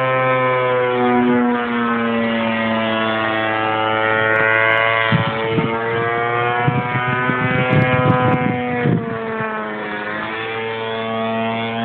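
Gasoline DLA 64cc twin-cylinder boxer engine of a giant-scale RC Yak-54 running steadily in flight, its pitch wavering slightly as the plane manoeuvres. A few knocks sound around the middle.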